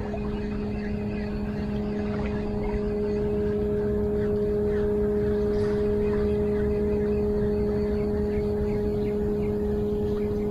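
A steady engine hum that holds one even pitch throughout, over a low rumble.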